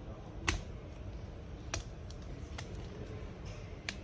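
Plastic frame clips of a Redmi Note 10S smartphone clicking loose as the frame is pried open: four sharp, separate clicks, roughly a second apart.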